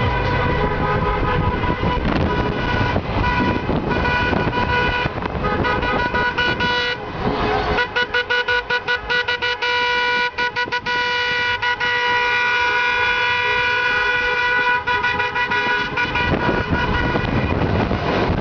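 Car horns of a wedding convoy honking in celebration: long held blasts, then a stretch of rapid short toots in the middle, over car engine and road noise.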